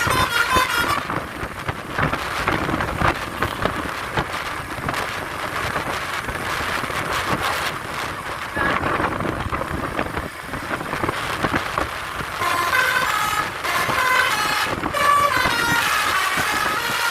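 A bus's telolet basuri horn, a multi-tone musical air horn, plays a stepping tune for about a second, then gives way to vehicle noise. The tune starts again a little after twelve seconds in and runs on.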